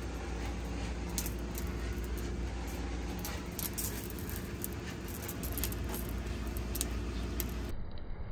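Scattered light clinks and taps of a spatula and flour container against a nonstick skillet as dry flour is added and stirred, over a steady low hum.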